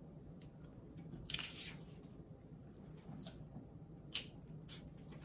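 Perfume atomizer giving a short spray hiss onto a paper test strip a little over a second in, followed by faint handling ticks and one sharp click of the bottle about four seconds in.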